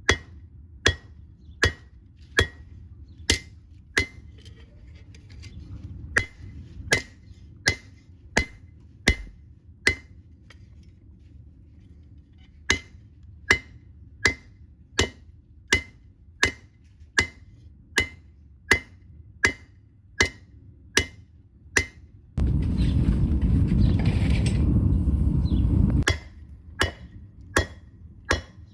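Hammer blows forging the steel of an old lawn mower blade into a knife, one ringing metal strike about every 0.7 seconds, with a pause of a couple of seconds about ten seconds in. Near the end a loud steady rushing noise lasts about three and a half seconds, then the hammering starts again.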